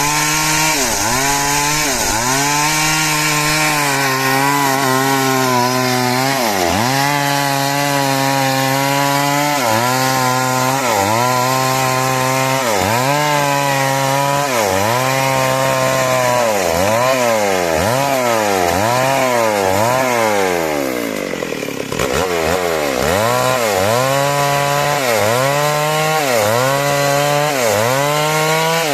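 Two-stroke chainsaw cutting timber into rafters, its engine speed dipping and recovering over and over, about every second and a half, as the chain bites into the wood. About two-thirds of the way through, the engine speed sags slowly for a couple of seconds, then picks up again.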